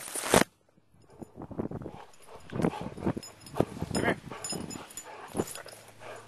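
A dog's close-up sounds, heard from a camera on its own head: irregular short puffs of breath and rustling. The sound cuts out almost entirely for about half a second near the start.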